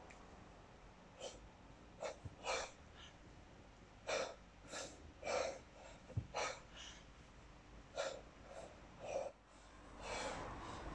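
A kettlebell lifter's hard, rhythmic breathing during continuous 32 kg snatches: short, sharp breaths in groups of two or three every couple of seconds, paced with the reps under sustained effort.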